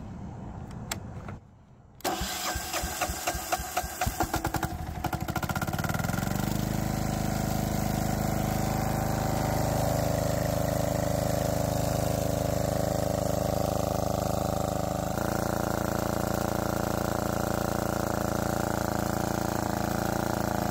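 Lombardini 15LD400 single-cylinder air-cooled diesel engine on a generator set being started for the first time after its fuel lines were re-plumbed: it cranks and fires with rapid knocking, speeds up over a couple of seconds, then settles into a steady run.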